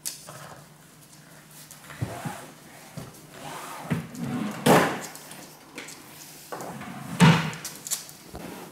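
Wooden TV-stand drawer pulled open and banged shut: two loud sharp wooden knocks about two and a half seconds apart, with lighter knocks and rustling before and between them.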